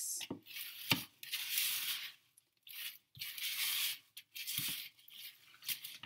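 A wooden spoon stirring a thick mix of rolled oats and crushed corn flakes coated in melted chocolate, butterscotch and peanut butter in a plastic mixing bowl. It makes repeated stirring strokes, each about half a second to a second long, and the spoon knocks against the bowl a few times, loudest about a second in.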